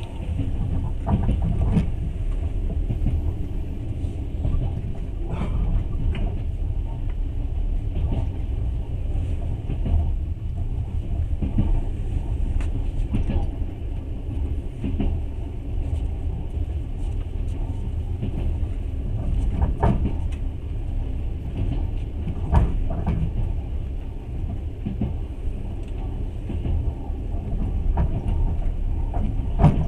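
Passenger train running, heard from inside the carriage: a steady low rumble with short clicks and knocks at irregular intervals.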